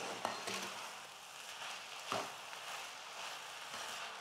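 Faint sizzling and crackling of cooked rice and sugar heating in a nonstick kadai as the sugar melts, with a steel spoon stirring through it and a light tap of the spoon about two seconds in.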